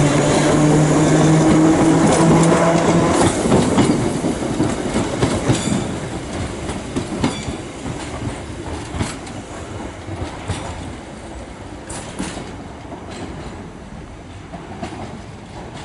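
Island Line Class 483 electric unit (ex-London Underground 1938 tube stock) moving off: a steady hum for about the first three seconds, then wheels clacking over rail joints and pointwork, fading as the train moves away.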